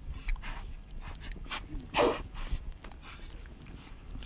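Tasmanian devil mother and joeys making a series of short, rough calls, the loudest about two seconds in.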